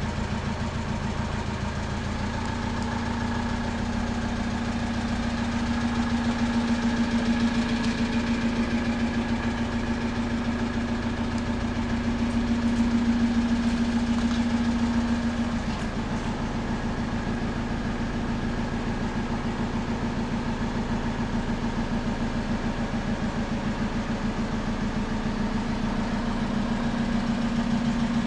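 Citroën Jumper 2.2 HDi four-cylinder diesel engine idling steadily. Its low hum grows louder for several seconds and eases back about halfway through.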